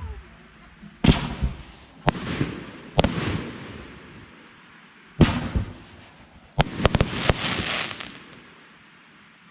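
Fireworks going off: single sharp bangs about one, two and three seconds in and another after five seconds, then a quick string of several bangs around seven seconds. Each bang trails off over a second or so.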